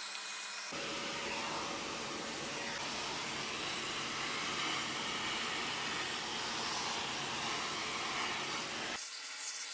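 An old vacuum cleaner running steadily, its hose nozzle sucking lint off the plastic-mesh lint filter of a tumble dryer. About a second in the sound turns fuller and lower, and near the end it thins back to a high hiss.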